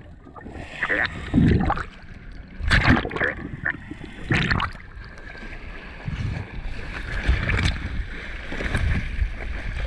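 Water sloshing and splashing around the spearfisher's camera in irregular bursts, turning about six seconds in to a steadier rush of churning water at the surface beside the boat's hull.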